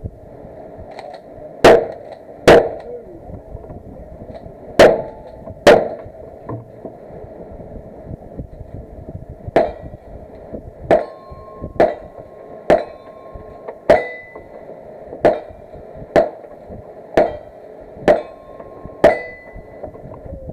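Gunshots on a cowboy action shooting stage: four very loud shots in the first six seconds, then about ten quieter shots roughly a second apart. Several of the later shots are followed by the short ring of struck steel targets.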